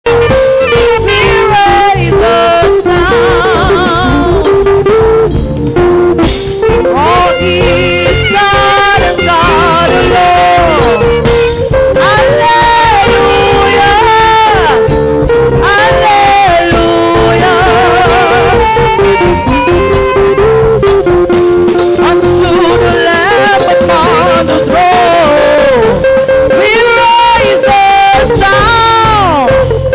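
Live band music: a singer with a wavering voice over drum kit and guitar, with a steady beat throughout.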